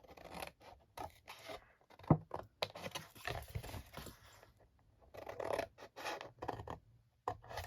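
Scissors snipping through thick white cardstock, a series of short cuts up the score lines of a box template.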